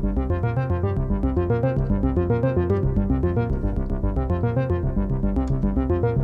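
Modular synthesizer playing a fast sequenced pattern of short pitched notes, about six a second, over a stepping bass line. This is the patch's plain sound with the matrix mixer unpatched, carrying only a small amount of frequency modulation.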